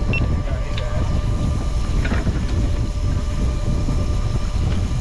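Steady low rumble of wind and water around a boat at sea, with a faint steady whine and a few light clicks.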